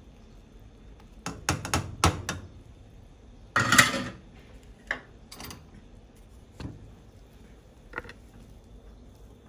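Kitchen clatter from a plastic measuring cup knocking against the rim of a steel saucepan to shake butter into boiling chocolate syrup: a quick run of clicks, then a louder clatter about half a second long near the middle. A few single light taps follow as a spatula starts stirring the butter in.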